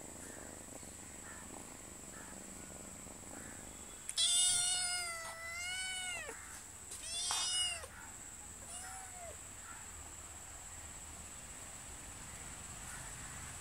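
Domestic cat meowing three times: a long, wavering meow about four seconds in, a shorter one right after, and a faint brief one.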